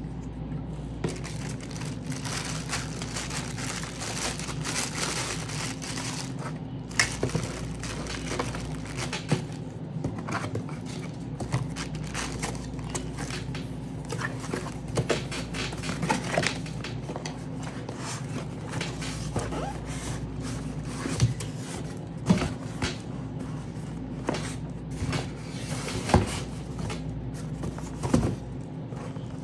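Handling noises: irregular scraping, crinkling and short knocks, over a steady low hum.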